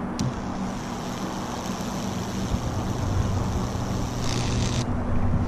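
High-voltage Lichtenberg wood-burning rig running as the current burns a fractal into water-soaked wood: a steady electrical hum with a hiss over it. The hiss grows brighter for a moment just past four seconds in.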